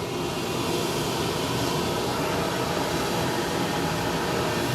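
Steady mechanical drone with a low hum, even in level throughout, heard from inside a cramped military vehicle.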